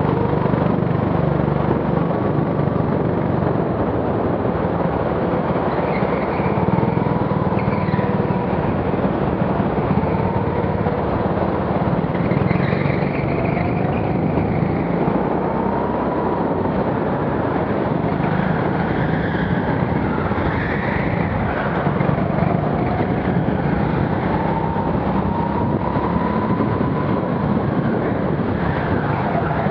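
Go-kart running hard on an indoor track, heard from the driver's helmet: a continuous motor drone whose pitch rises and falls as the kart speeds up and slows for the corners.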